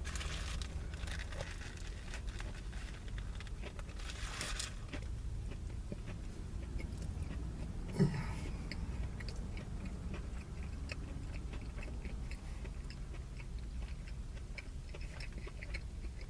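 Someone biting into and chewing a breaded crispy chicken sandwich: crunchy bites near the start and again around four seconds in, then steady chewing with small wet clicks. One brief, louder knock about halfway through.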